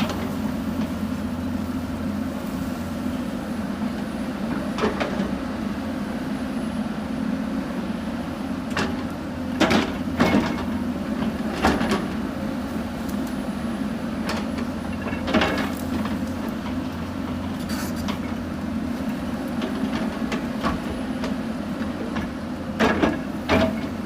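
Hyundai 220 crawler excavator's diesel engine running steadily under work, with sharp clanks and knocks every few seconds from the bucket and arm working into the hillside.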